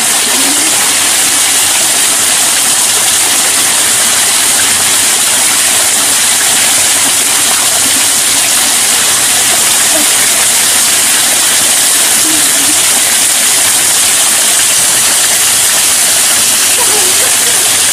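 Small waterfall pouring steadily off a rock ledge onto rock and into a shallow pool: a loud, even rush of water.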